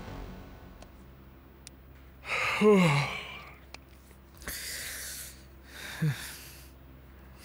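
A man sighing heavily about two and a half seconds in, his voice dropping in pitch, followed by two long breathy exhales, the second ending in a short low groan.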